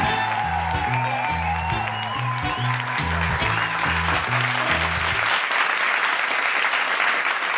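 Theme music with a pulsing bass line and a wavering melody, with applause and cheering swelling up over it; the music stops about five seconds in, leaving the applause.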